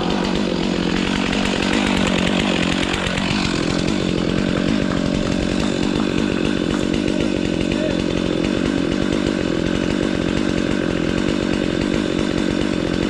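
Chainsaw engine running steadily, its pitch shifting briefly about two to three seconds in.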